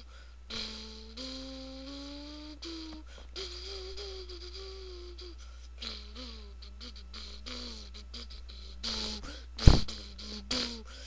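A person humming a tune, holding notes that step and glide up and down in pitch, with short clicks in between; a single loud thump near the end.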